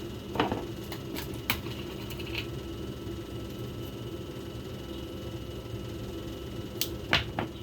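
Steady low background hum with a few light clicks and taps of kitchen utensils, twice about a second in and twice near the end, as the chicken is seasoned.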